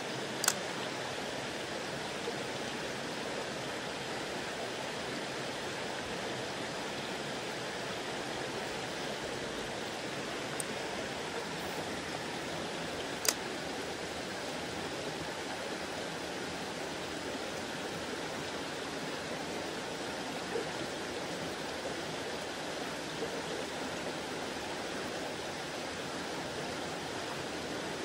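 Mountain stream running over rocks in a steady rush of water, broken by a few short, sharp clicks, the loudest about half a second in and about 13 seconds in.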